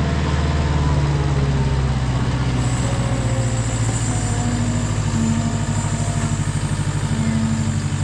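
Diesel engine of a JCB compact track loader running steadily as the machine carries a round hay bale.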